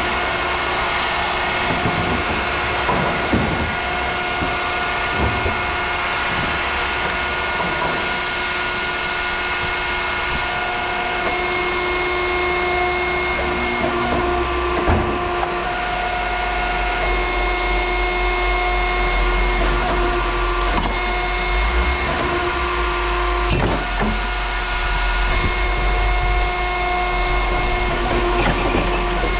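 Heavy machinery running steadily with a whine over a low rumble, broken by a few sharp metal clanks.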